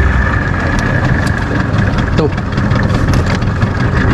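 Suzuki 15 hp outboard motor running steadily, with a few light clicks or knocks over the top.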